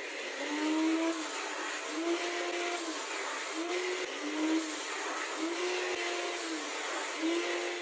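Angle grinder in a chop stand with an abrasive cut-off disc, cutting steel rod into short pieces: about six cuts in a row. The motor's whine drops under load during each cut and climbs back up between cuts.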